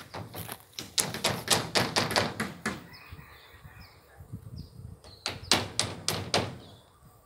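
Rapid runs of sharp knocks, about four or five a second, in two bursts a few seconds apart.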